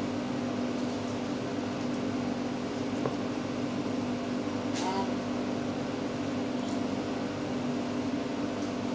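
Steady mechanical hum of a kitchen fan. About five seconds in there is a faint brief scrape as a knife works through raw meat.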